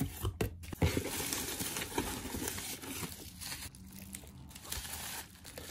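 Bubble wrap and packaging crinkling and rustling as items are lifted out of a cardboard shipping box, with a few light knocks in the first second as cardboard tubes are moved.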